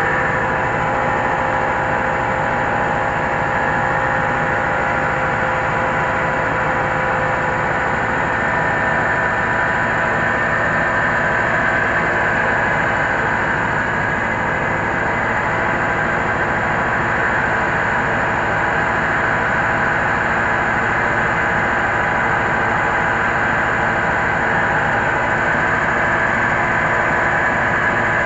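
Diesel-engined mobile rice huller running steadily while milling rice, the engine and the huller's works making one continuous mechanical din with a steady whine on top.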